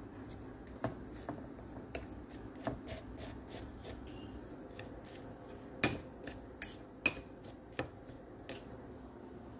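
A metal spoon stirring dry flour mix in a ceramic bowl, clinking against the bowl in a run of light clicks, with the loudest clinks about six to seven seconds in.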